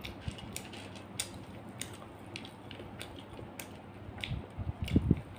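Close-miked eating by hand: scattered sharp, wet clicks as fingers pick apart a fried pomfret and work the rice, then a run of louder low crunching thuds near the end.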